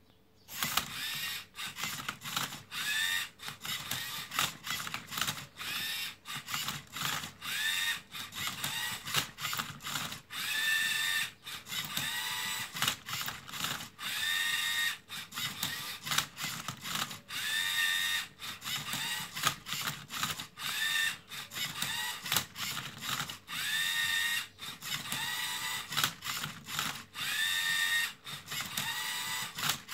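LEGO Mindstorms EV3 servo motors of a MindCub3r robot solving a Rubik's cube, starting about half a second in. The motors run in short bursts, each a rising whine, and there are many sharp plastic clicks and clacks as the arm tips the cube and the tray turns it.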